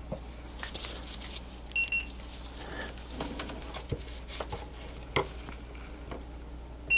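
Multimeter continuity beeper giving a short high beep about two seconds in and starting another right at the end as the probes touch ground points, the sign of an unbroken connection to ground. Between the beeps, faint clicks and rustle of the probes on the circuit board.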